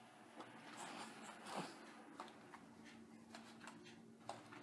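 Near silence: quiet indoor room tone with a faint steady hum and a few soft clicks and rustles.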